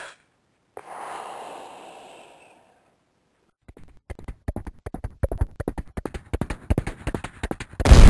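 Sound effects: a hiss that fades out, then a fast, irregular run of sharp clicks that grows louder and denser, cut off by a sudden loud boom near the end.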